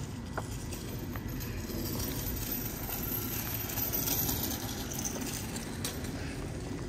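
Street ambience: a steady low rumble of traffic with light footsteps on paving, and a kick scooter rolling by on asphalt about four seconds in, its wheels adding a hiss.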